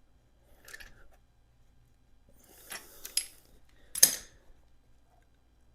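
A few light metallic clinks and rattles of tools being handled, the loudest a sharp clack about four seconds in.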